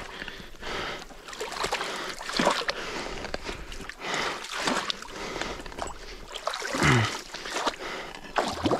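A person wading through deep creek water, the water sloshing and splashing around the legs in a few uneven surges, with a trickle of flowing water between them.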